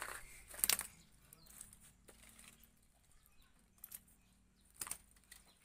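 A hooked snakehead thrashing on the line after being lifted from the pond: a few sharp slaps and rattles, the loudest just under a second in and another near the end.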